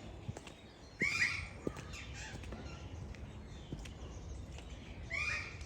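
Birds calling: two short, harsh, arching squawks about a second in and again near the end, over a low background of other bird sounds and faint clicks.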